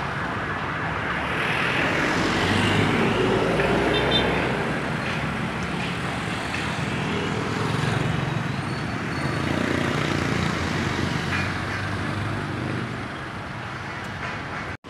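Steady city street traffic: cars, jeepneys and motorcycles running past, with engine hum and tyre noise swelling slightly as vehicles go by.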